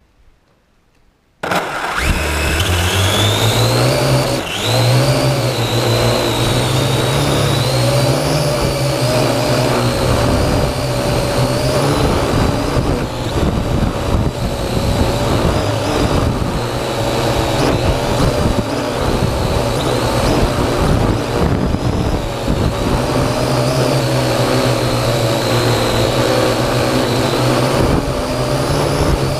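Parrot AR.Drone 2.0 quadcopter's motors spinning up about a second and a half in, the whine rising for a couple of seconds and then holding steady, over a low rumble.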